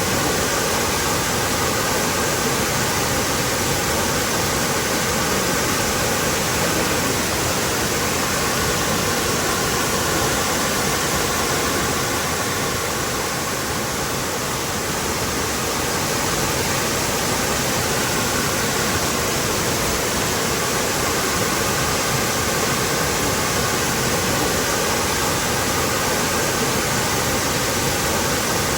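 Waterfall: water falling and splashing in a steady, dense rushing noise.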